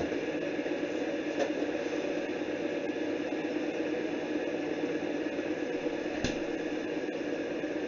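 Glass electric kettle heating water: a steady rushing noise as it works toward the boil, with two faint light clicks, one near the start and one near the end.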